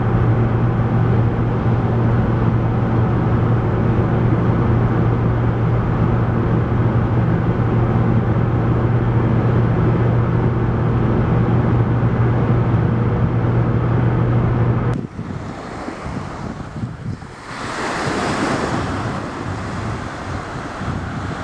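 A car's engine and road noise drone steadily with a low hum, as heard inside a moving car. About fifteen seconds in it cuts abruptly to wind on the microphone and surf, with one wave swelling and fading.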